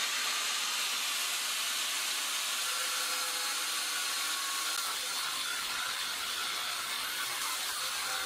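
Angle grinder with a cut-off disc running at speed and cutting into a bicycle bottom bracket shell clamped in a vise: a steady, high hiss of the disc grinding through metal.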